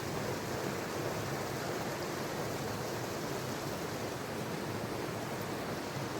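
Creek water rushing over rocks, a steady even hiss.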